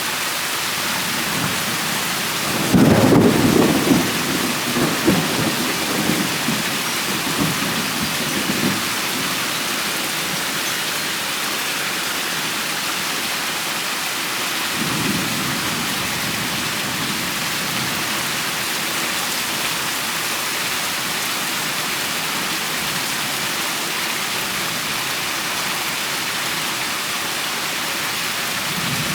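Steady rain falling, with a sharp thunderclap about three seconds in that rumbles on for several seconds, and a fainter roll of thunder about halfway through.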